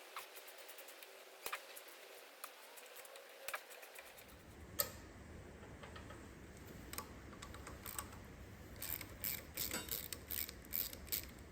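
Scattered metallic clicks and clinks of hand tools working the cylinder head bolts of a Kubota ZL600 engine, sparse at first, then a quicker run of ratchet-like clicks near the end.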